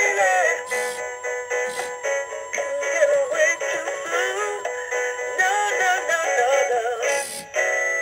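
Gemmy animated singing cardinal toy playing its song: a synthesized singing voice over tinny music with a steady beat.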